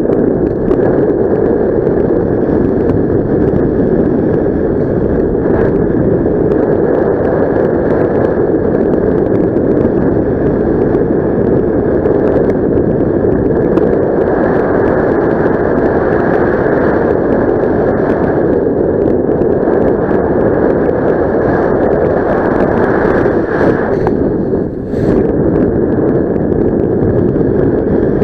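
Steady wind noise rushing over the camera microphone in paraglider flight, with a brief dip near the end.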